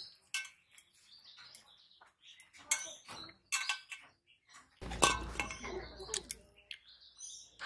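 Fingers mixing and scooping rice and curry in a stainless steel plate: scattered clinks and scrapes of hand against the steel, with a brief low rumble about five seconds in.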